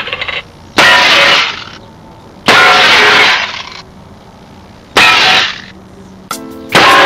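Four loud crash sound effects about two seconds apart, each starting suddenly and ringing out briefly, with a short pitched tone just before the last.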